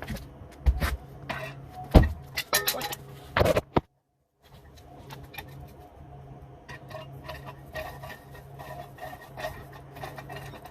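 Knocks, clatter and clinks of a coat rack being handled and put back together, loudest in the first four seconds and softer after a brief cut, over a steady low hum.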